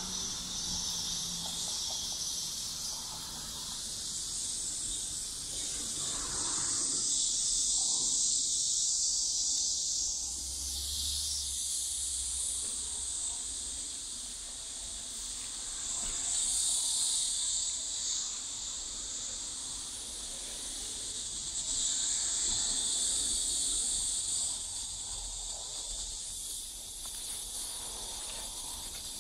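Cicadas chorusing: a high, dense buzzing that swells and fades several times, loudest around a quarter and three quarters of the way through.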